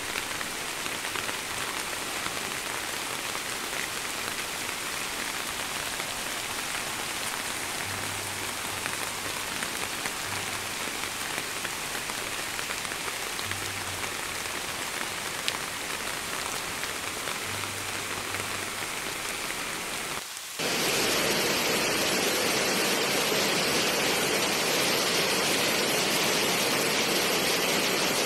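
Steady rain falling over a flooding river, an even hiss. About two-thirds of the way through it changes abruptly to a louder, steady rush of water.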